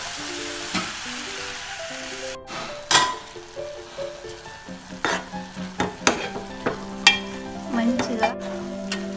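Tomato and cluster-bean curry sizzling in an aluminium pot while a spoon stirs it, clicking and scraping against the pot's side now and then. A tune of held notes plays underneath.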